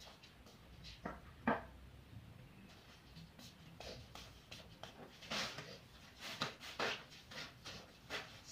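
Plastic broom sweeping a concrete floor in short, irregular swishes, growing busier from about five seconds in. Two sharp knocks come about a second in.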